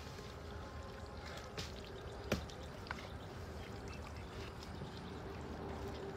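Fish sliding out of a woven bamboo fish trap into a plastic crate, with muddy water dribbling. A few sharp knocks, the loudest just over two seconds in.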